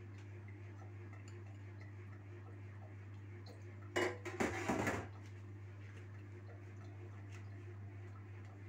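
A brief clatter of kitchenware about four seconds in, with a sharp start and about a second of rattling, then a few faint small clicks over a steady low hum.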